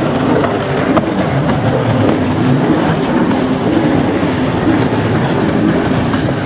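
Racing stand-up jet skis running at high revs, a steady loud engine drone whose pitch wavers up and down as the riders throttle through the turns.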